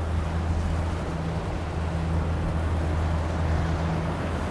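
Four Mercury Racing 450R supercharged V8 outboards running steadily under way, a low, even drone, over the rush of the wake and wind.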